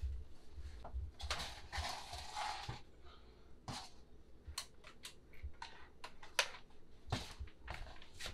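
Scattered light knocks, clicks and rustling of things and cables being handled and shifted, with footsteps on a wooden floor.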